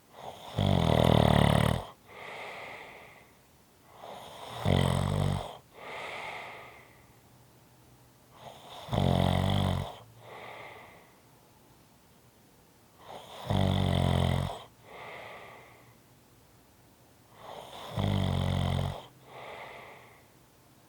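A person snoring steadily: five loud, rattling snores come about every four and a half seconds. Each is followed by a softer, breathy breath.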